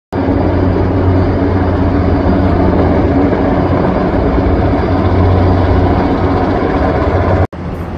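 Heavy-lift helicopter hovering and flying overhead, its rotor and turbine engine running loud and steady. The sound cuts off suddenly near the end.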